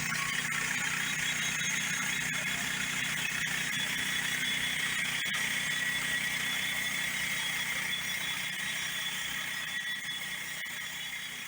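Portable band sawmill running under engine power, its band blade cutting through a log: a steady engine drone under a high, squealing blade whine.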